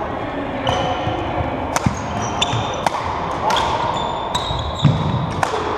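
Badminton rally: rackets striking the shuttlecock in a run of sharp cracks, several in quick succession from about two seconds in, with short squeaks of sneakers on the wooden court floor between them.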